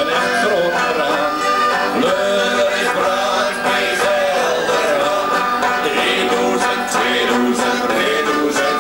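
Live band music in a folk-country style with plucked strings, playing a continuous melody that slides and bends in pitch.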